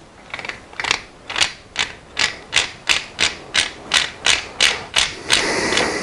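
Honda CR-V rear differential being turned by hand, its gears clicking about three times a second and turning into a continuous rasp near the end. The owner distrusts this sound and thinks the differential should not sound like this.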